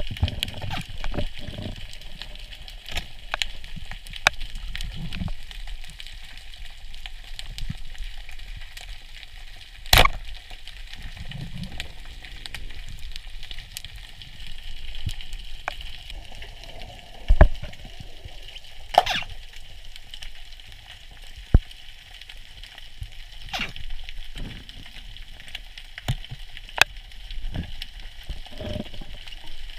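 Underwater sound over a rocky reef, picked up through the camera housing: a steady crackle like frying, scattered sharp clicks, and a handful of louder clicks, the loudest about ten seconds in, with some low muffled thumps.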